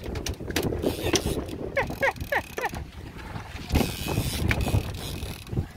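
Hooked mahi-mahi splashing at the surface beside the boat, with wind on the microphone. A few short falling cries come about two seconds in.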